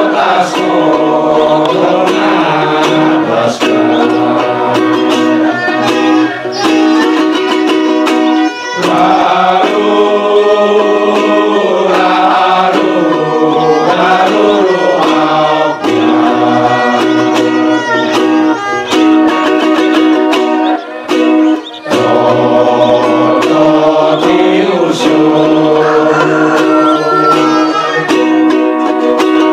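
Men's choir singing a hymn in the Amarasi language, accompanied by a violin and plucked strings, with a steady held note underneath.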